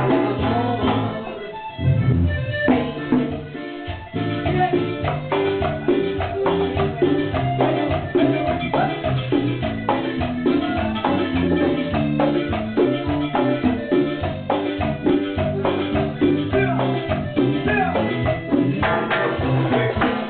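A band rehearsing, playing music with drums and percussion under the melody and a steady beat.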